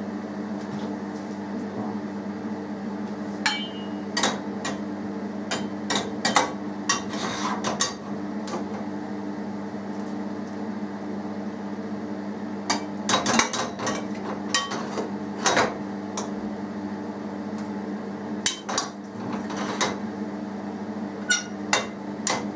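A metal skimmer and ladle clinking and tapping irregularly against a china plate and the rim of an enamel pot as mashed potato is scooped up and knocked off into the pot, over a steady low hum.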